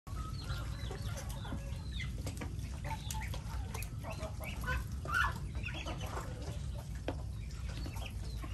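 A flock of chickens clucking, many short calls overlapping, with one louder call about five seconds in.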